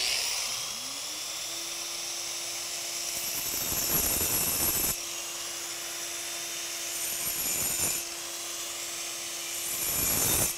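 4-inch angle grinder with a diamond blade spinning up to a steady whine, then grinding into concrete, with louder grinding noise about three and a half to five, seven to eight, and nine and a half to ten and a half seconds in.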